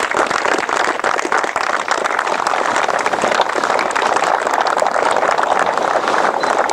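A crowd applauding, with dense, steady clapping from many hands.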